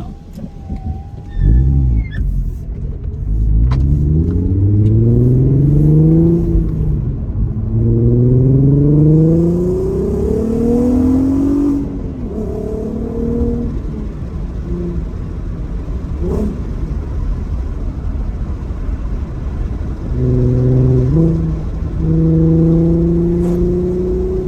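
Audi TT's 3.2 VR6 engine pulling the car up through the gears: its note climbs three times, dropping back at each upshift, then settles to a steady cruise with road and wind noise through open windows. It runs smoothly, without the misfire it had before the new coil packs.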